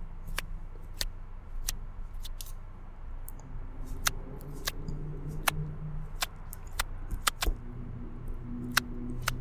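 Long press-on nails clicking against each other close to the microphone: sharp, irregular clicks about one or two a second. Soft background music with held notes comes in about four seconds in.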